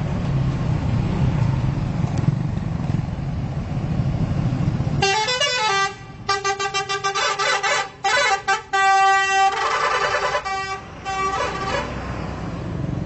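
A steady low rumble, then about five seconds in a bus's telolet musical air horn plays a stop-start tune of several different notes for about seven seconds.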